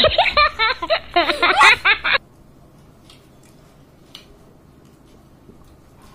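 A person's voice, chattering or laughing, that stops abruptly about two seconds in. Faint room sound with a couple of soft clicks follows.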